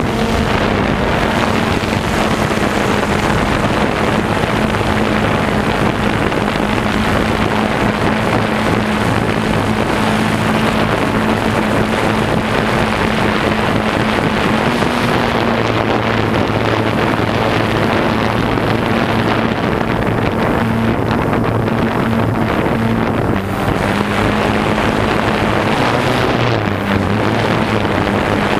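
Drone propellers humming steadily, with wind noise over the microphone; the pitch of the hum shifts slightly a few times.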